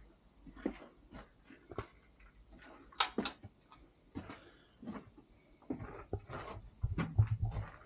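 Footsteps scuffing and crunching on debris, with irregular knocks, one sharp one about three seconds in and a cluster of heavier thuds near the end.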